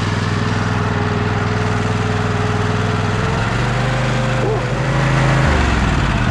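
A vehicle engine running steadily. Its note changes about three seconds in and again near the end.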